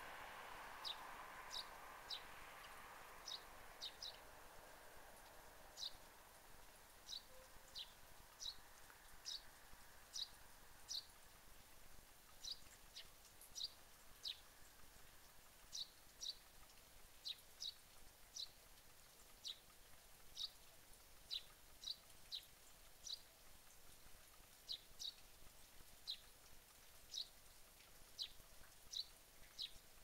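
Eurasian tree sparrow chirping over and over: short single chirps, roughly one or two a second, with a faint background hiss that fades in the first few seconds.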